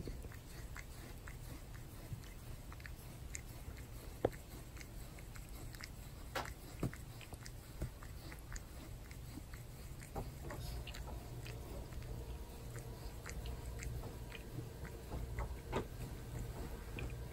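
A domestic cat licking a person's arm: irregular soft wet clicks and rasping laps of its tongue, a few of them louder.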